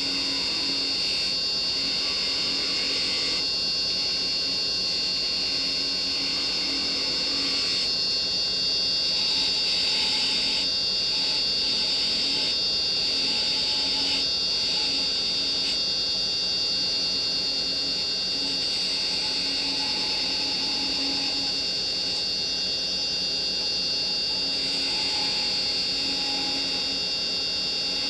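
Wood lathe running steadily while a carbide-tipped chisel cuts a small spindle, the cutting noise rising and easing as the tool is worked along the wood, with a steady high whine from the lathe throughout.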